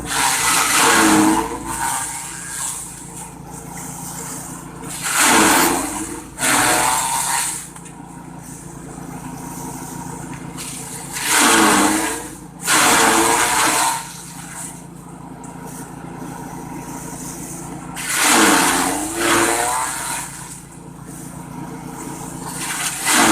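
Grass chopper machine running steadily, with loud bursts of chopping about every five to six seconds as grass is fed through the blades; the motor's pitch dips under each load and recovers.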